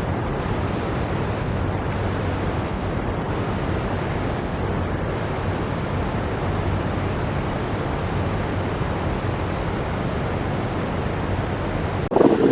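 Steady rushing noise with no distinct events. About twelve seconds in, it cuts abruptly to a louder, rougher noise.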